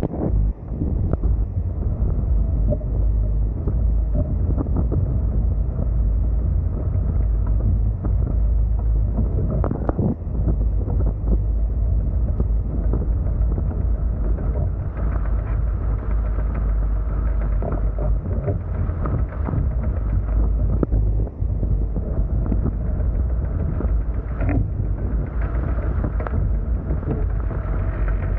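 Heavy wind buffeting on the microphone over the rush and splash of water along the Hobie Tiger F18 catamaran's hull as it sails fast, a steady low rumble.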